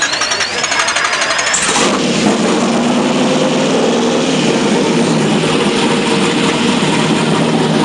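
Naturally aspirated LS V8 being started: a high starter whine for under two seconds, then the engine fires and runs at a loud, steady idle.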